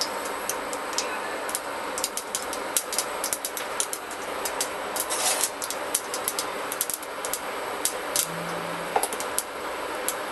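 Mustard seeds frying in hot oil in a pressure cooker: a steady sizzle with many sharp, irregular pops and crackles as the seeds begin to splutter.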